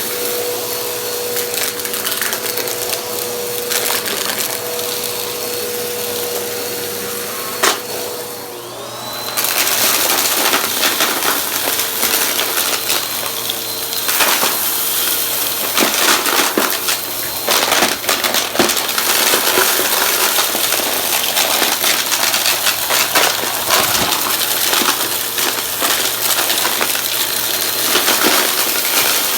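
Vacuum cleaner running with a steady hum. From about nine seconds in it turns louder and gritty, with many rapid crackles and clatters as crunchy debris is sucked up.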